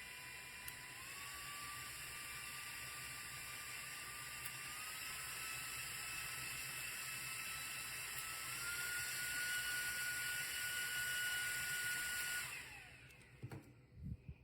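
Small battery-powered portable fan running, its motor whine stepping up in pitch three times as the speed is raised, louder at each step. Near the end it is switched off and the whine falls away as it spins down, followed by a few clicks.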